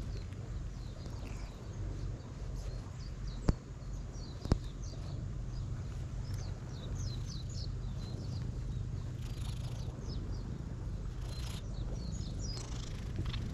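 Outdoor ambience with a steady low rumble, two sharp taps about a second apart a few seconds in, and, in the second half, rapid series of high chirps from small birds.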